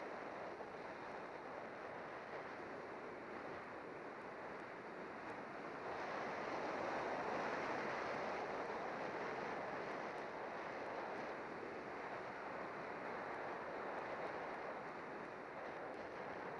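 Steady rush of wind over the microphone of a camera mounted on a bicycle descending at speed, mixed with road noise. It grows louder about six seconds in, then eases slightly.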